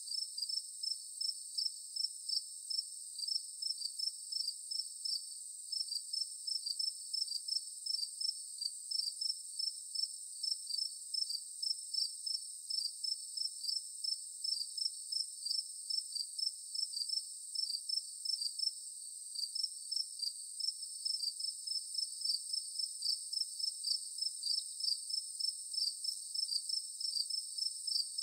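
Chorus of insects: a steady high-pitched drone with short chirps repeating a few times a second over it, briefly pausing about two-thirds of the way through. The sound is thin, with no low end at all.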